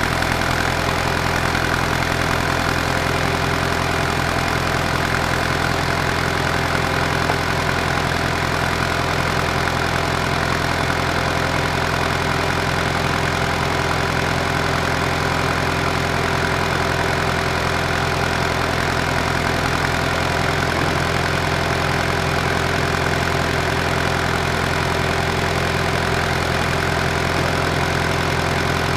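Engine of a 1940s Kohler electric light plant running steadily at an even speed, driving the generator with a box fan as its load. It is keeping itself going on its rebuilt diaphragm fuel pump after being started on fuel poured down the carburetor.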